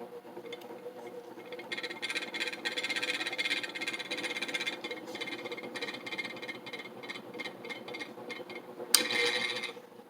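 Harbor Breeze Vector Elite ceiling fan starting up from its pull chain: a steady motor hum with a dense rattling and clicking that sets in about two seconds in. The rattle thins to scattered clicks, then a sharp click near the end is followed by a brief noise before it drops away.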